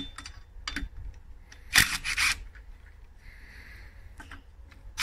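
Ridgid cordless impact wrench hammering on a lug nut in two short bursts a little under two seconds in, with light clicks of the socket on the wheel nuts around them.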